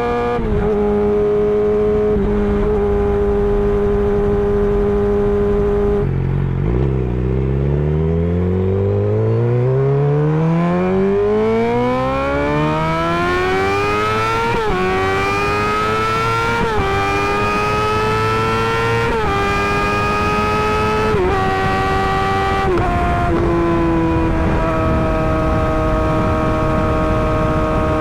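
Suzuki GSX-R600 inline-four through an M4 GP slip-on exhaust, under way: it holds a steady note, drops to low revs about six seconds in, then pulls in one long rising rev for about eight seconds. It then shifts several times with short dips in pitch and settles to a steady cruise.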